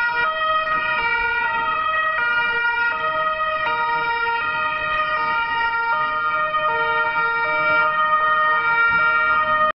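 Police car two-tone siren, the pitch stepping back and forth between two notes, cutting off abruptly near the end.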